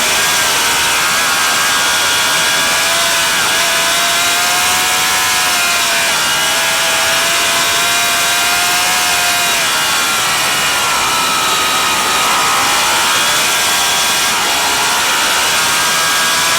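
Racing motorcycle engine running hard, its pitch held high for several seconds, dipping about ten seconds in and climbing again, over a heavy rush of wind noise.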